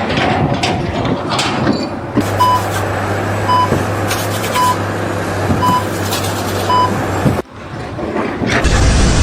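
A vehicle's reversing alarm beeping five times, about once a second, over a running engine. Near the end the sound cuts out suddenly and a louder, steady rumble comes in.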